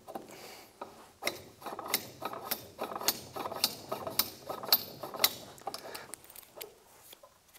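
Metal snowmobile rear-suspension parts being worked by hand against the chassis: a run of sharp clicks and knocks, about two a second, with scraping between them, dying away near the end.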